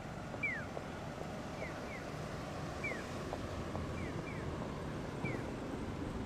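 Japanese audible pedestrian-crossing signal chirping in its call-and-answer pattern: a single falling 'piyo' answered by a softer double 'piyo-piyo', repeating about every two and a half seconds. Under it runs a steady rumble of street traffic.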